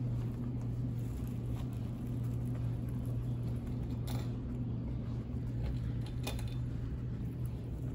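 Guinea pigs moving about on fleece and hay, with light rustling and a couple of soft clicks, over a steady low background hum.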